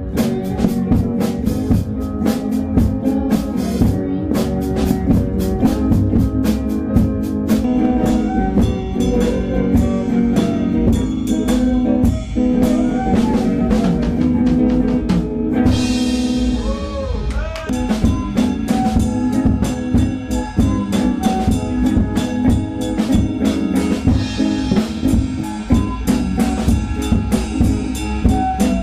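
Live band playing rock music: drum kit keeping a steady beat under electric guitars, keyboard and flute.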